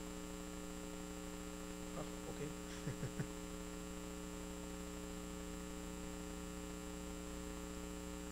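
Steady electrical mains hum on the sound system, several even tones held without change, with a few faint brief sounds about two to three seconds in.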